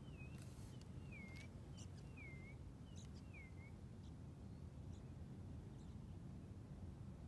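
A bird calling four times, about once a second, in short whistled notes that dip and then rise, with a few faint ticks between them. A steady low rumble runs underneath.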